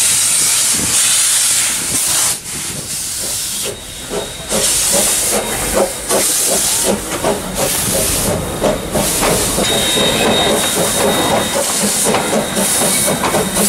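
Steam locomotive passing close at low speed, hissing loudly as steam escapes in repeated surges. From about four seconds in, a quick, rapid knocking from the moving engine and carriages joins the hiss.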